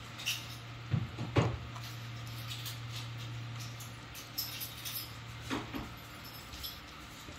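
A few soft knocks, scratches and rustles as a juvenile vervet monkey moves about and reaches for food in its pet carrier, over a steady low hum. The loudest knocks come about a second and a half in and again about five and a half seconds in.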